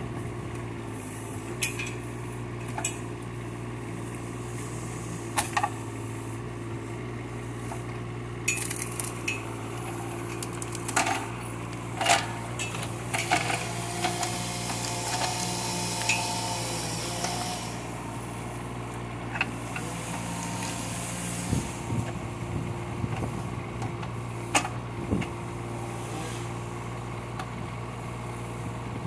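Kubota K008 mini excavator's small diesel engine running steadily under hydraulic load, with scattered sharp metallic clanks and knocks from the bucket and its linkage as it digs and pulls at bush roots.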